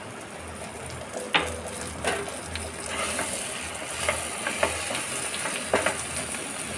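Taro stolons sizzling in hot oil in a non-stick frying pan as a slotted spatula stirs them and the freshly added mustard paste, with several sharp scrapes and taps of the spatula against the pan. The sizzle grows a little stronger about halfway through.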